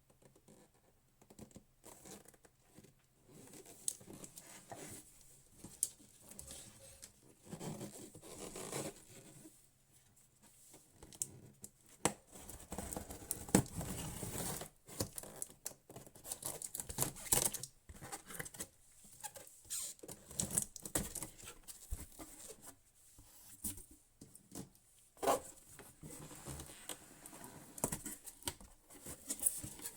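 Packaging being handled during an unboxing: irregular rustling, tearing and crinkling, with scattered clicks and knocks.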